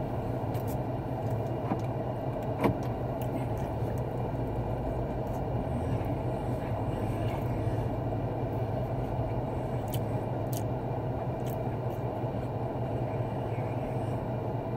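Steady low hum inside a parked car's cabin, the running car's background drone, with a few faint clicks and soft chewing over it.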